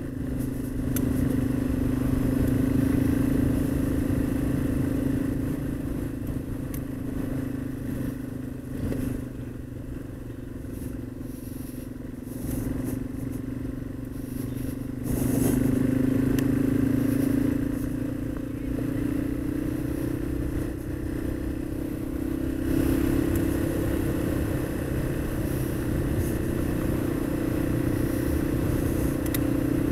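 Yamaha XT225's single-cylinder engine running as the bike rides on gravel, with tyre and road noise underneath. The engine eases off about a third of the way in, then pulls harder again about halfway, its pitch slowly rising as the bike picks up speed.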